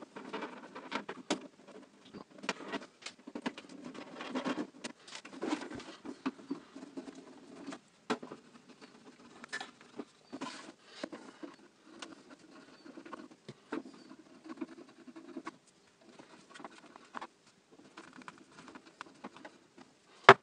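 Casing of a Philips micro hi-fi unit being handled during disassembly: irregular clicks, taps and scrapes of plastic and metal as the unit is worked on and its cover shifted.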